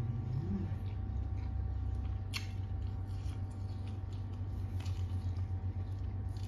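Close-miked chewing of a mouthful of papaya salad and grilled pork, with a sharp click about two and a half seconds in.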